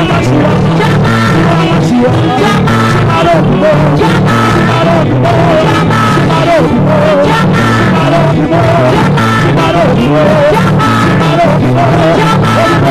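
Live gospel band music: a steady drum beat and a repeating bass line under a wavering lead melody.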